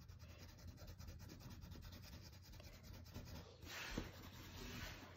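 Faint scratchy rubbing of a colored pencil shading on paper, a little louder about four seconds in.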